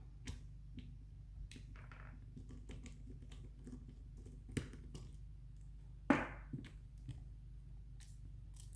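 Scattered light clicks and taps of the Byrna LE launcher's plastic and metal parts being handled and set down, with one sharper knock about six seconds in.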